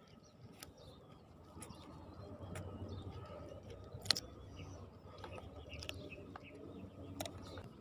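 Faint outdoor background with faint bird calls and a few scattered light clicks.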